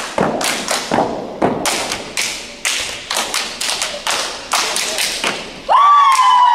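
Step team stepping in rhythm: sharp stomps, claps and body slaps, about three a second. Near the end a loud held shout from the steppers cuts in over the beat.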